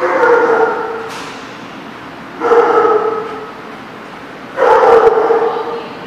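A small dog giving three long, loud vocal calls of steady pitch, each about a second long and about two seconds apart.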